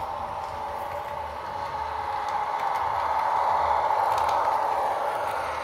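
Rivarossi ALn 668 model diesel railcar running by on the track, its Marmodel sound decoder playing the railcar's diesel engine sound through the model's small speaker. It grows louder as the railcar passes close, about four seconds in, then eases off.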